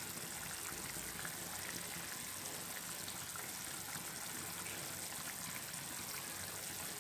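Spiced gravy bubbling steadily in a pan on the gas flame, with coriander and gram-flour dumplings simmering in it.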